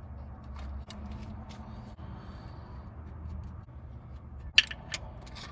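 Light clinks of metal engine parts and hand tools being handled, with one sharp metallic click about four and a half seconds in, over a steady low hum.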